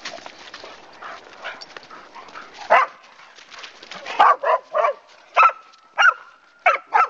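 A dog barking in short, sharp barks while two dogs tussle over a stick. There is one bark nearly three seconds in, then a quick run of about seven more.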